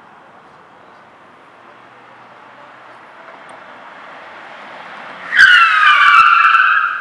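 A police car approaches, its noise growing louder, then about five and a half seconds in its tyres screech loudly for about a second and a half as it brakes hard, the screech sinking slightly in pitch. This is a deliberate emergency stop at a set speed, made to lay down test skid marks.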